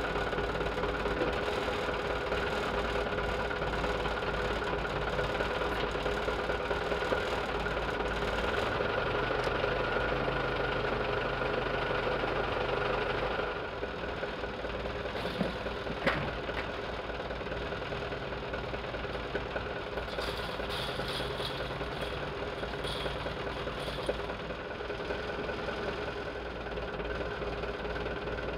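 A machine running steadily with a constant hum, a little quieter from about halfway through.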